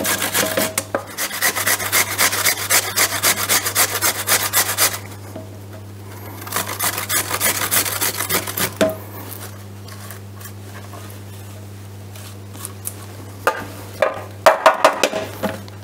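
Raw peeled potatoes grated by hand on a stainless steel box grater: fast scraping strokes that pause about five seconds in, resume, and stop about nine seconds in. Near the end, a few sharp knocks of the grater against the steel pan.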